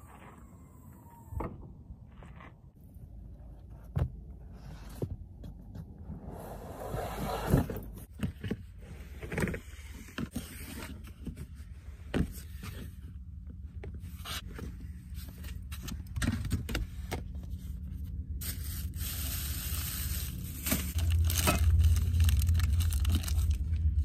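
Rummaging in a minivan's cargo area: scattered knocks, clicks and scrapes as a plastic storage tote is pulled out and its lid lifted off, with plastic bags and food wrappers rustling. A low steady rumble comes in near the end.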